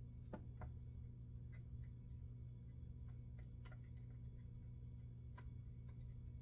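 Faint, irregular small clicks and ticks of a screwdriver and tiny metal parts as a line roller screw is driven into a spinning reel's bail arm, over a steady low hum.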